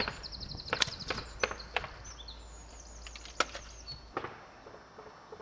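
About half a dozen sharp wooden knocks or snaps spaced irregularly, with small birds chirping in the background.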